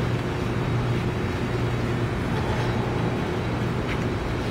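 Steady low mechanical hum with a faint higher tone held above it, the constant background drone of a vast industrial hall.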